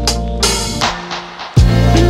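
Background music with a drum beat and held notes. The bass drops out for a moment, then comes back with a strong kick drum about one and a half seconds in.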